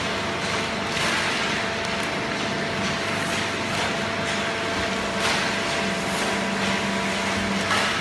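Horizontal hydraulic paper baling machine and its chain conveyor running steadily: a constant hum from the hydraulic power unit, with clatter and scattered knocks from the conveyor and the waste paper. A deeper hum comes up about six seconds in and eases near the end.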